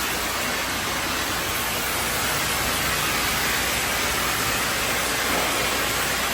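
Steady, loud rushing hiss that does not change, with a low hum underneath.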